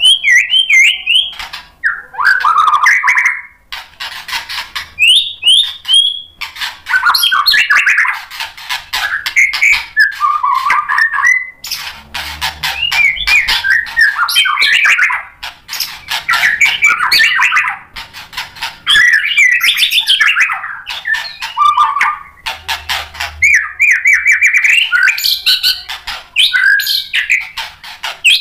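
White-rumped shama (murai batu) singing loudly in full song: fast, varied phrases of whistles and chattering, broken by short pauses, as it pours out its repertoire of mimicked song material.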